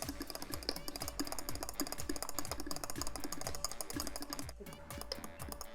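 A whisk clicking rapidly against the inside of a cup, whipping instant dessert powder and milk until it is light and fluffy.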